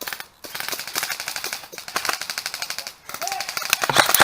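Airsoft guns firing on full auto: long strings of rapid sharp clicks, with short breaks between bursts about a third of a second in and again about three seconds in.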